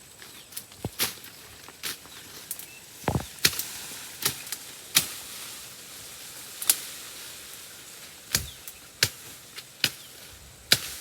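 Irregular sharp snaps and crackles of twigs and dry leaf litter underfoot as someone walks through forest undergrowth, over a steady background hiss.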